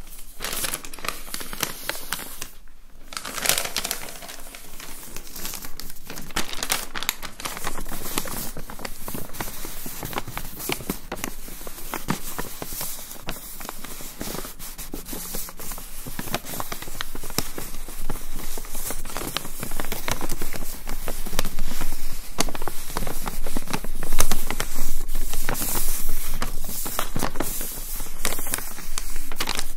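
A long paper shop receipt crinkled and handled close to the microphone, a dense crackling. There is a short pause about three seconds in, and the handling gets louder in the second half.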